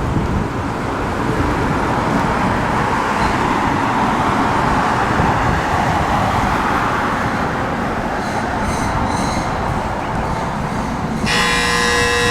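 A heavy fire truck passing close by: an even rumble of diesel engine and road noise that swells toward the middle and eases off. About 11 seconds in, a steady, many-toned horn-like warning signal starts abruptly.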